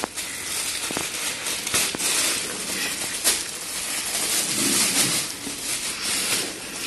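Cat tunnel's fabric rustling and crinkling with irregular crackles as it is moved about.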